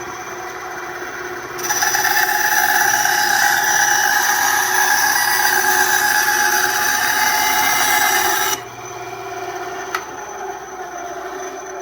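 Ryobi 9-inch band saw running, its blade cutting through a piece of wood for about seven seconds starting near two seconds in, then running free again. A single sharp click near the end.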